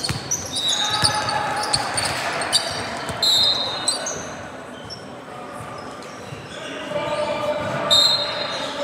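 Basketball game court sound in a gym: a ball bouncing on the floor and players' voices, with a few short high-pitched tones, the loudest lasting under a second a little after three seconds in.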